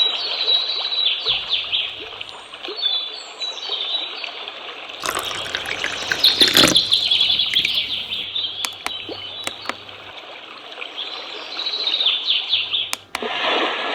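Recorded birdsong played back as a nature sound: many quick chirps over a steady soft hiss. There is a louder rush of sound at about five to seven seconds, and several sharp clicks later on.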